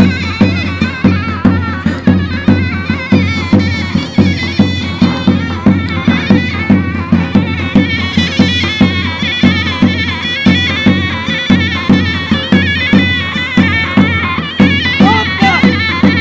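Turkish folk dance music played on a shrill zurna, whose wavering, ornamented melody sits over a steady davul drum beat of about two strokes a second.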